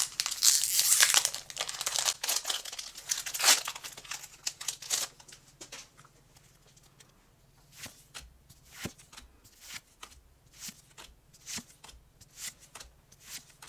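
Foil booster pack wrapper torn open and crinkled, loudest in the first few seconds. It is followed by a run of soft separate flicks as the trading cards are handled one by one.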